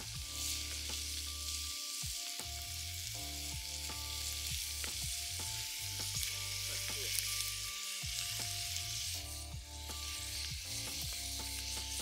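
Meat frying in a cast iron skillet over a campfire, sizzling steadily with scattered small pops.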